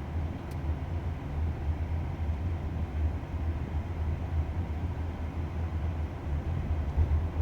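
Steady low rumble of road noise inside a moving car's cabin.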